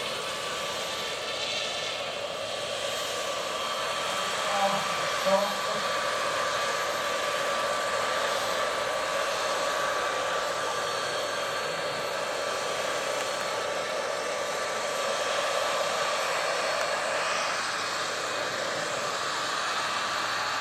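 Small gas turbine of a large scale RC AgustaWestland AW139 helicopter model running spooled up, a steady whine over a rushing hiss, as the model lifts off and hovers.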